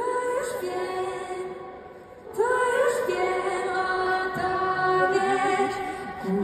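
Music with a woman singing long held notes. The first phrase fades out about two seconds in and a louder phrase begins right after.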